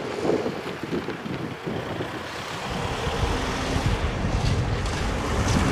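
Wind buffeting the microphone, and from about halfway a car on the road nearby coming closer, its engine and tyres a low rumble growing louder.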